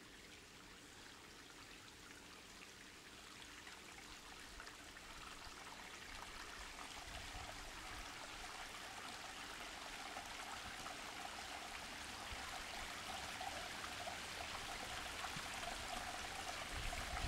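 Water trickling and splashing down a newly built stone cascade into a pond as the pump runs it for the first time, the flow building and the sound growing steadily louder.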